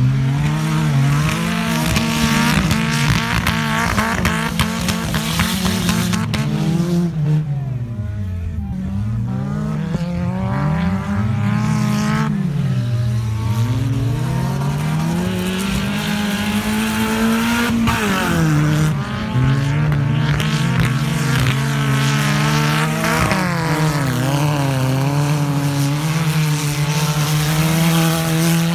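Wreck-race cars (old scrap cars) racing on a dirt track, engines revving up and down, their pitch repeatedly rising and falling as the drivers work the throttle and gears.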